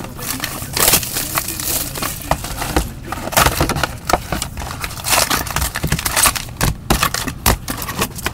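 A hockey card box and its packs being opened by hand: a dense, irregular run of crinkling, tearing and scraping packaging noises.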